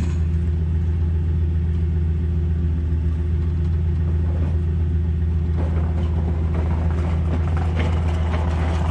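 A van's engine idling steadily, a low even hum. From about halfway in, scattered knocks and rattles join it.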